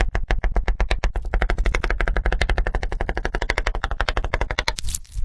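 Rapid, even tapping, about a dozen sharp strikes a second, which stops shortly before the end.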